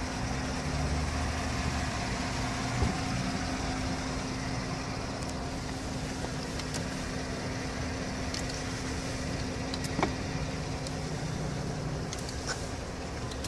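Pickup truck idling, a steady hum with a constant low tone heard from inside the cab, with two small knocks about three and ten seconds in.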